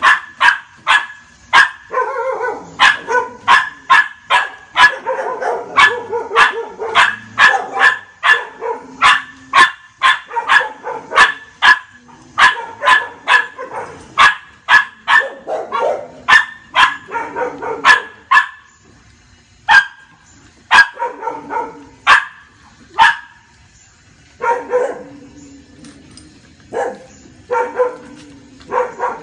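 A dog barking over and over in sharp, quick barks, about two a second at first, coming more sparsely and in short groups in the last ten seconds.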